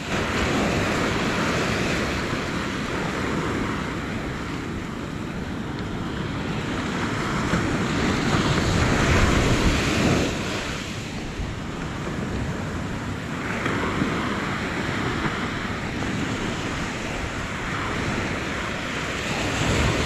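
Surf breaking and washing up a sandy beach, with a swell to its loudest about halfway through, mixed with wind buffeting the microphone.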